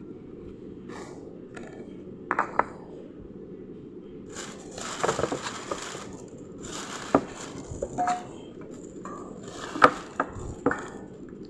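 Cat food packaging and containers being handled: plastic rustling in short stretches, with scattered clicks and knocks.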